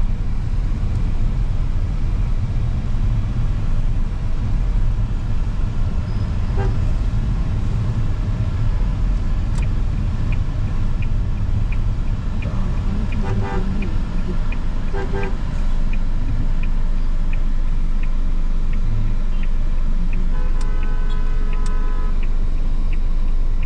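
Car engine and road rumble heard from inside a moving car in city traffic, with short car-horn toots about 7, 13 and 15 seconds in and a longer horn blast of about a second and a half near the end. From about 10 seconds in a turn-signal indicator ticks evenly, a little over one tick a second.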